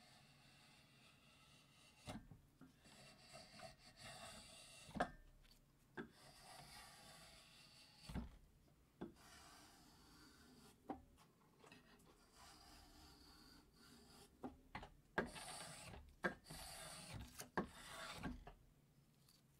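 A handmade spokeshave with a 1095 steel blade pulled in quiet shaving strokes along a strip of wood, each stroke a short scrape, with sharp clicks between strokes. Partway through, the same spokeshave shaves a carrot.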